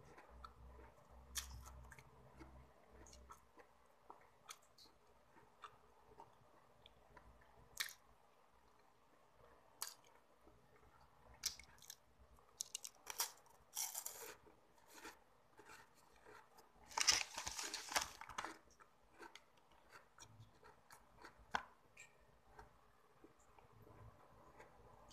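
Close-up chewing and crunching of a chocolate wafer stick: scattered small crisp clicks, with a few louder clusters of crunching in the second half, the longest and loudest about two-thirds of the way through.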